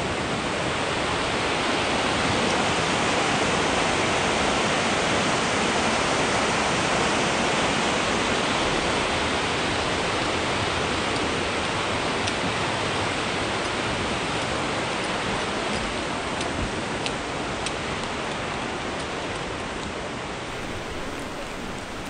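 Rushing water of a mountain stream, a steady hiss that eases slightly over the last few seconds.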